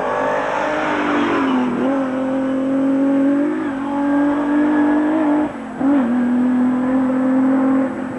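Rally car engine at high revs: the car comes through at full throttle, with a change in engine note about two seconds in and a brief lift and throttle blip around five and a half seconds in, then holds a steady high-revving note.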